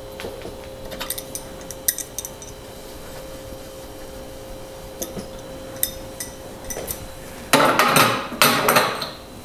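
Metal hand tools clinking against a steel bicycle bottom bracket as a wrench and lock-ring tool are fitted on, in scattered light clicks. Near the end comes a louder, rough metal clatter lasting nearly two seconds.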